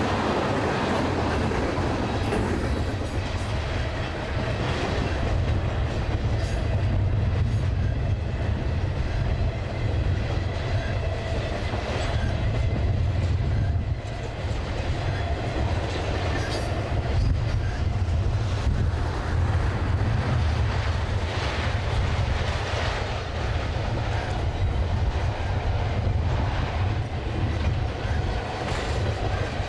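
Intermodal freight train's trailer-carrying flatcars rolling past: a steady low rumble of steel wheels on rail, with scattered clicks and clacks from the wheels.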